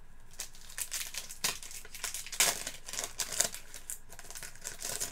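Trading cards being handled with a crinkling plastic or foil wrapper: a run of short, irregular crackles and rustles.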